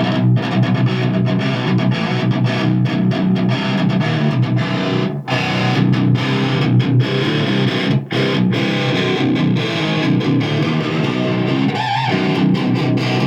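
Electric guitar played through an amplifier with distortion, riffing continuously with a few short breaks.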